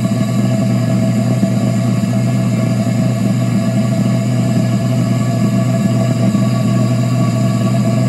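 Air compressor running and a propane–air combustion chamber burning steadily: a loud, constant hum with an even rushing noise over it.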